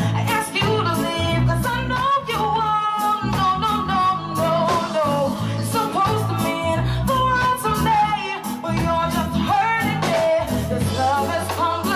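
Live band playing a song, with a bass line, drums and a wavering lead melody on top.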